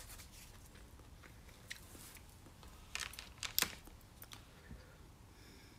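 Quiet eating sounds: chewing, with a few sharp clicks about three seconds in from metal chopsticks against a plastic food tray.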